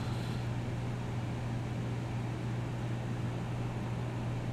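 A steady low hum with a soft hiss behind it, unchanging throughout: background room or equipment noise.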